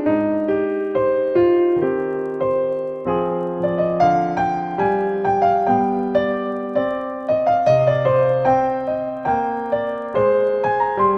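Background piano music: a gentle, unhurried melody over sustained chords, the notes struck and left to ring.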